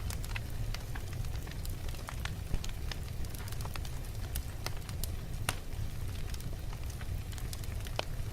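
Wood fire burning in a fireplace: a steady low rumble of the flames with irregular sharp crackles and pops, several a second.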